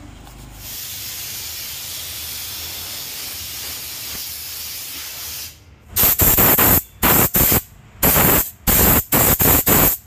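Handheld steam-cleaning gun of a mobile steam-wash unit hissing steadily for several seconds, then, after a short gap, fired in quick, loud blasts of steam, about two a second, onto car floor carpet.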